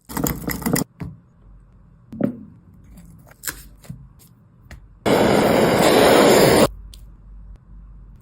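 Kitchen food-preparation noises: a quick run of scraping strokes, a few sharp knocks and clicks, then a loud steady hiss for about a second and a half, cut off suddenly.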